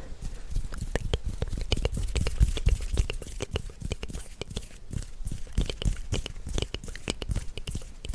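Close-miked ASMR trigger sounds: a dense, irregular run of small clicks and crackles with soft low thumps, made right at the microphone.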